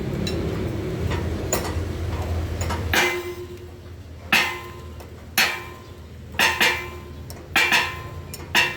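A low steady hum for about the first three seconds, then about eight sharp metallic knocks with a short ring, irregularly spaced and some in quick pairs.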